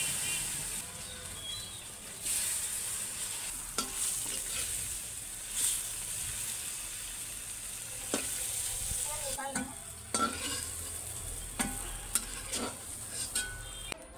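Cauliflower florets frying in hot oil in a kadhai: a steady sizzle, with a metal spatula scraping and clacking against the pan as they are stirred.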